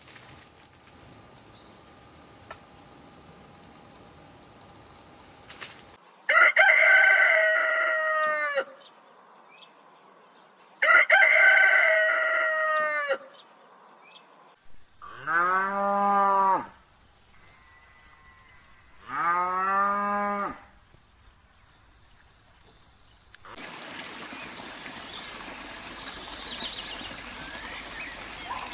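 A run of farm-animal and bird calls: short high bird chirps, then two long crowing calls, then two lower, drawn-out calls that fall in pitch at the end. A steady high-pitched buzz runs under the middle part, and an even outdoor background with a thin high tone takes over near the end.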